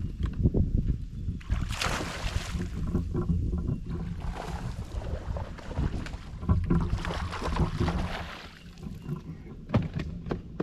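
Wind rumbling on the microphone, with water splashing as a hooked bass thrashes at the surface beside the boat.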